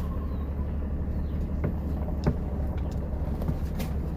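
Pickup truck driving, heard from inside the cab: a steady low rumble of engine and road noise, with a few faint clicks.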